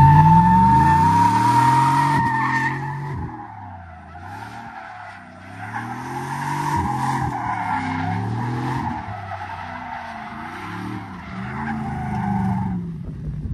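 Chevrolet Silverado pickup doing donuts, its engine revving up and down while the rear tyres squeal continuously. It is loudest at the start, eases off around four seconds in, then builds again twice. This is a burnout test of the truck's freshly rebuilt differential.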